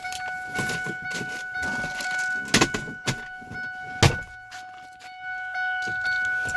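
A car being manoeuvred, with a steady high whine running under it and two sharp knocks, the louder one about four seconds in.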